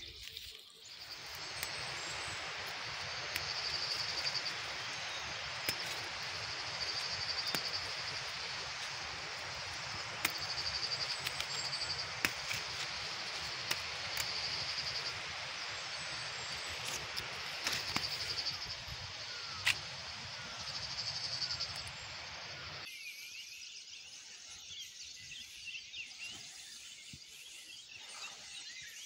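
Outdoor field ambience: a steady high insect buzz that swells into louder pulses every three or four seconds, over the rustle of bean leaves and scattered small clicks as beans are picked by hand. Near the end the rustling cuts out suddenly, leaving the buzz.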